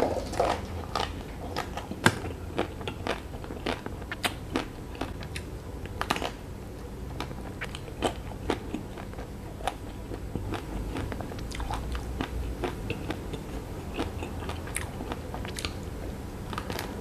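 Close-up biting and chewing of a La Cremeria Almond ice cream bar: irregular sharp crunches as the chocolate coating and almond pieces crack between the teeth.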